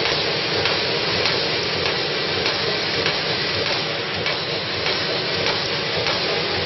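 Bottom-seal plastic bag making machine running: a steady mechanical noise with light clicks every second or so.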